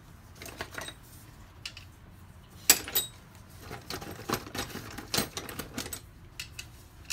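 Scattered sharp metallic clicks and ticks of a hand wrench and socket being worked on camshaft bearing cap bolts, at uneven spacing, the loudest about two and a half seconds in.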